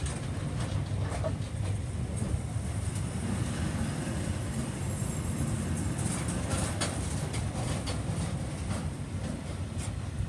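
Freight train of steel-laden flat wagons rolling past close by: a steady low rumble of wheels on rail, with irregular clanks and clicks from the wagons.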